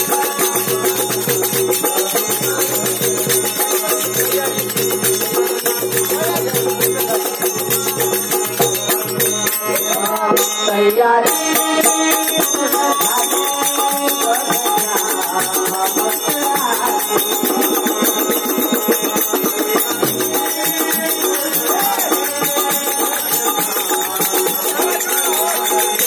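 Devotional bhajan: men singing together to harmonium and barrel drum (dholak), played through a PA loudspeaker. Steady held harmonium notes sit under the bending vocal line, with a brief noisy disturbance about ten seconds in.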